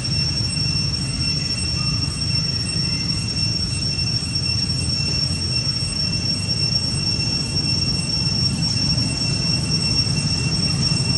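Steady outdoor background noise: a continuous high, even whine with a fainter tone an octave below it, over a low rumble, unchanging throughout.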